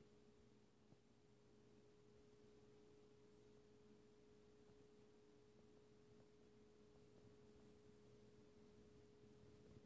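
Near silence: a faint, steady hum with one constant tone, and no snoring or breathing to be heard.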